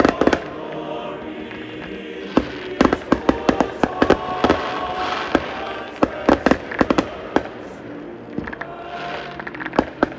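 Professional fireworks going off in clusters of sharp bangs and crackles, several volleys in quick succession, over music playing in the background.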